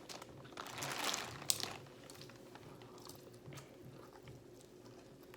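Close-up eating sounds from a seafood boil: a noisy stretch of chewing lasting about a second, with one sharp crack in it, then quieter, scattered chewing.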